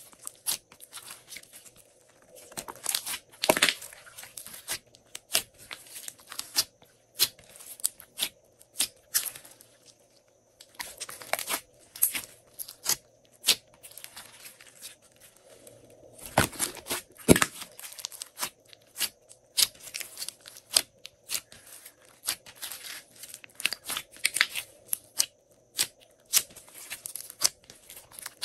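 Hands squishing, pressing and stretching a large mass of glossy slime, making many irregular sticky clicks and pops, with a few louder squelching pops.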